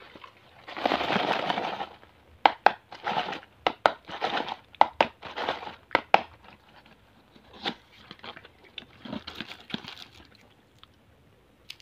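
A cardboard candy box being handled and opened. A rustling scrape comes about a second in, then a run of sharp crackles and rustles, and softer rustling near the end.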